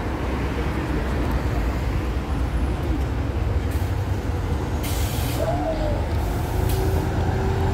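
Mercedes-Benz Citaro city bus running at low speed with a steady low diesel rumble, and a short hiss of compressed air from its air brakes about five seconds in.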